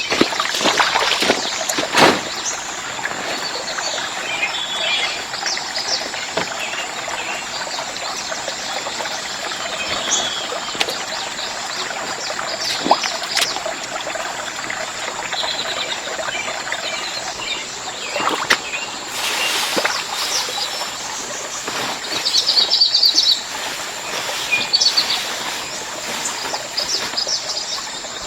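Outdoor forest ambience: birds chirping repeatedly over a steady background hiss, with a few sharp knocks.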